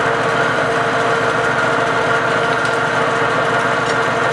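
Central Machinery metal lathe running with a steady whine while a coarse file works the edge of the spinning bolt blank; the file is lifted away near the end.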